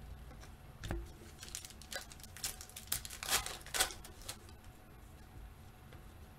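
Clear plastic trading-card pack wrapper crinkling in the hands while cards are handled, with a soft thump about a second in and a run of sharp crackles between about one and four seconds in.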